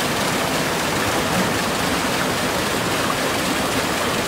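Water gushing down a stone chute in a channel that feeds a water-driven mechanism: a steady, loud rush.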